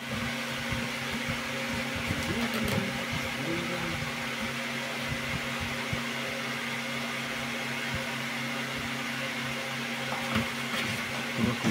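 A steady mechanical hum from an unseen running motor or appliance, with a low drone.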